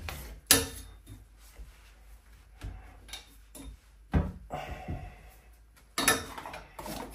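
A few separate sharp clicks and knocks from the plastic isolation valves of a central-heating system filter being turned open by hand, the loudest about half a second in and others near four and six seconds.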